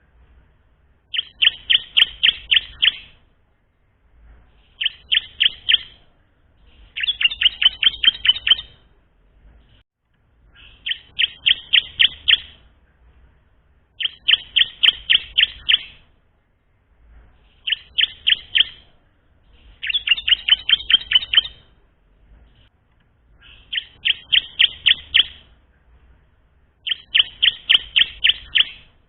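Ciblek (bar-winged prinia) singing, a young bird practising its song: about nine bursts of rapid, sharp, high chip notes, each burst of six to nine notes lasting a second or two, repeated roughly every three seconds.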